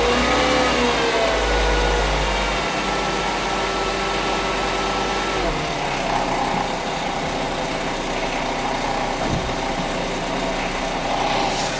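Volkswagen Jetta Mk5's 2.5-litre five-cylinder engine running at low revs; its note wavers slightly, then eases down about five seconds in and settles to a steady idle. At these revs it makes the cyclic snore-like noise from inside the engine that goes away above about 1000 rpm, which the owner is unsure is normal.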